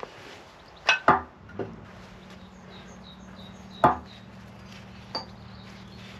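Hard metal clunks and knocks as a steel bar and a metal collar are worked against a cast-iron machine bed: two close together about a second in, a lighter one soon after, the loudest near the middle, and a lighter knock near the end.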